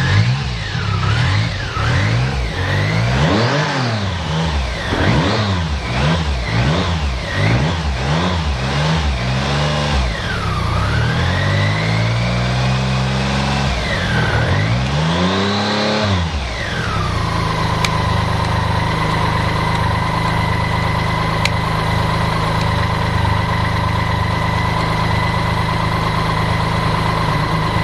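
BMW K75S motorcycle's inline three-cylinder engine being revved again and again, the pitch rising and falling with each throttle blip and a couple of longer, slower revs near the middle. About 17 seconds in it drops back to a steady, even idle.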